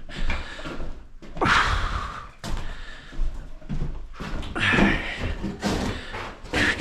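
Irregular knocks and thuds of wood being handled, with scraping in between: 2x4 framing lumber and tools being moved and set down.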